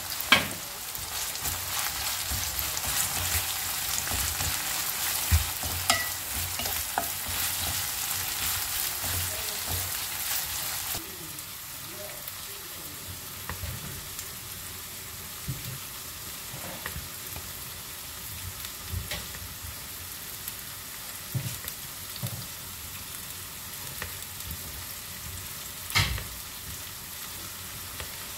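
Sliced onions sizzling in a frying pan, with a sharp clatter right at the start. About eleven seconds in the sizzle stops suddenly, and a knife slicing a block of white cheese taps now and then on a cutting board, one knock near the end louder than the rest.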